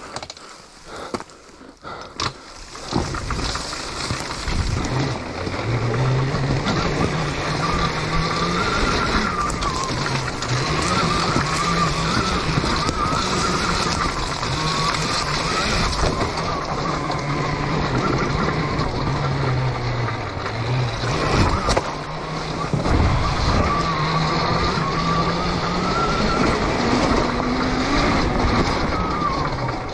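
Homemade electric dirt bike, a converted Honda CR, being ridden: its electric motor and drivetrain whine rises and falls in pitch with the throttle over the noise of the tyres on a leaf-covered trail. Quieter for the first few seconds, then steady riding.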